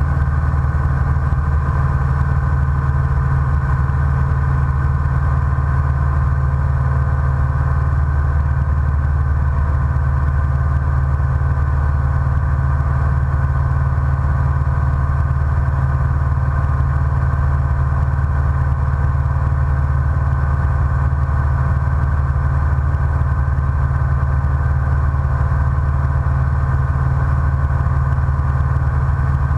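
Light single-engine propeller airplane's engine and propeller droning steadily in flight, heard from inside the cockpit.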